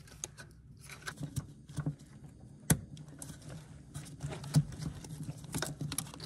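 Scattered light clicks and taps of plastic wiring-harness connectors and wires being handled and plugged together, with two sharper clicks, one near the middle and another about two seconds later.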